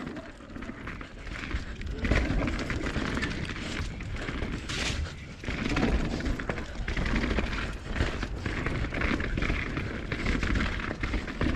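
Mountain bike descending a rough dirt trail, heard from a camera on the rider: tyres rumbling over dirt and roots, with a constant fast clattering rattle of chain and frame and wind buffeting the microphone.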